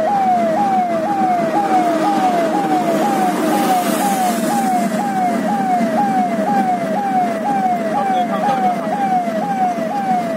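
Electronic police-style siren wailing in a fast, even cycle, about two sweeps a second, each rising sharply and then falling away, over the steady rumble of the vehicle on the road.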